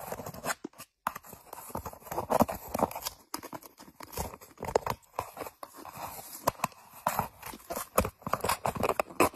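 A cat biting and clawing at the torn edge of a hole in a paper sheet: irregular crunching, tearing and quick clicking strokes.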